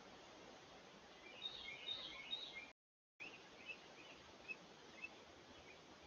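Carolina wren calling: a quick cluster of high chirps, then after a short dropout in the recording, fainter scattered chirps over a low background hiss.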